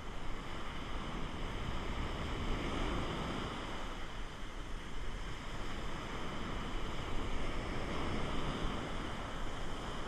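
Ocean surf breaking and washing up the beach in foam, swelling twice as waves rush in, with wind rumbling on the microphone.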